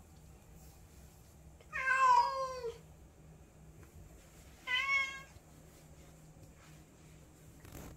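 Orange tabby cat meowing twice: a longer meow about two seconds in, then a shorter one about three seconds later.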